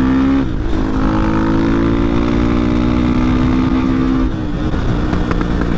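KTM 500 EXC-F supermoto's single-cylinder four-stroke engine running steadily while riding, its note dropping and turning rougher about four seconds in as the bike slows.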